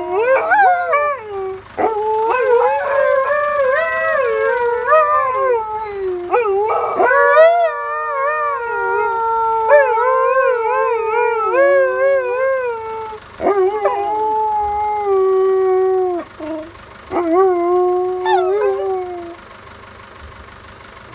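Alaskan malamutes howling, set off by an ice cream van. The long howls waver up and down in pitch and stop about nineteen seconds in.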